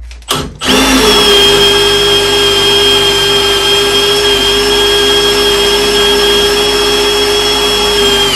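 Power drill boring an 8 mm titanium-coated Milwaukee Shockwave bit through 10 mm thick iron plate. The motor blips once, then runs loud and steady with an even whine and stops near the end.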